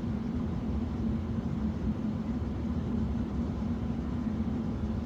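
A steady mechanical hum over a low rumble, unchanging throughout.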